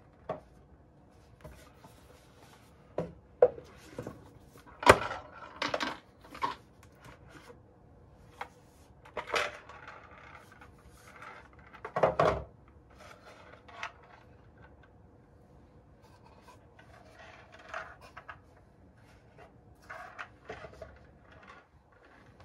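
Thermostat packaging being handled on a wooden table: scattered clicks and knocks as the box insert is lifted and small metal mounting screws rattle and are set down, with some light rubbing. The loudest knocks come about five and twelve seconds in.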